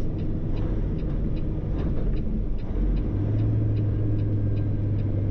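Cummins X15 inline-six diesel of a Peterbilt 389, heard from inside the cab during a clutchless downshift of its 18-speed manual transmission. The engine drone shifts about three seconds in, then settles into a steady low hum as the gear slips in with almost no grinding. A light regular ticking, a few times a second, runs underneath.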